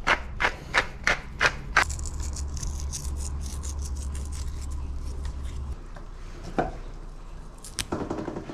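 Wooden pepper mill being twisted over raw tuna, grinding in sharp crunching clicks about three a second, stopping about two seconds in. A few light knocks near the end.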